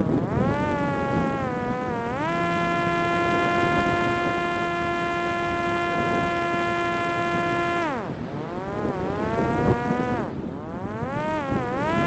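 Parrot Disco's electric propeller motor whining in flight, a buzzing tone that climbs in pitch and then holds steady for several seconds. About eight seconds in it cuts back and then climbs again, twice, as the throttle changes. Wind noise is underneath.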